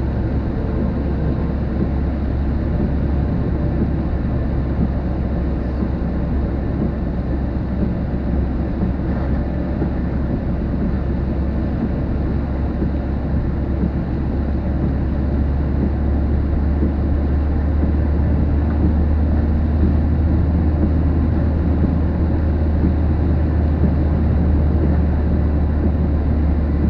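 Storm wind as a steady low rushing noise with wind on the microphone, swelling slightly about halfway through.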